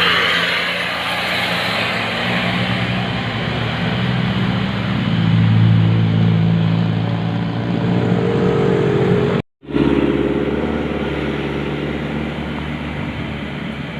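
Large bus engine running as the vehicle goes by, a low drone that swells loudest a little before the middle, broken by a sudden split-second dropout about two-thirds of the way through.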